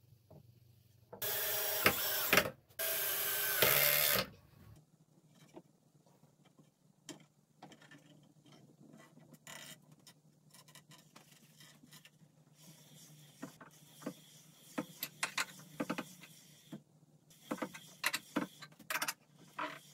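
Two short runs of a cordless drill driving screws, about a second each, then faint scattered clicks and knocks as the band saw blade is handled and fitted over the wooden wheels.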